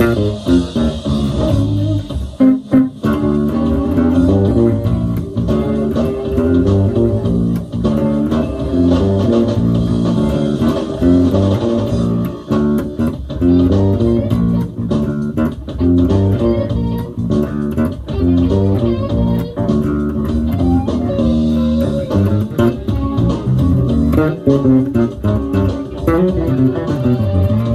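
Electric bass, a four-string Jazz Bass-style instrument, played fingerstyle through an amplifier: a quick, busy funk line of plucked notes.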